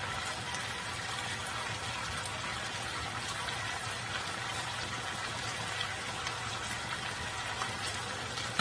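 Baby octopus, garlic and onion sizzling in sweet chili sauce in a nonstick wok: a steady hiss with small scattered crackles.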